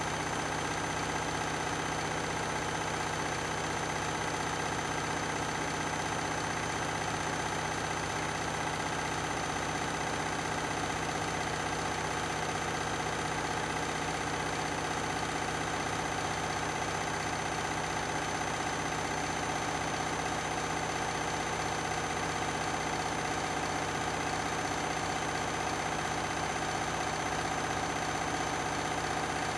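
Beko and Candy washing machines running side by side: a steady mechanical hum with a constant motor whine above it, unchanging throughout.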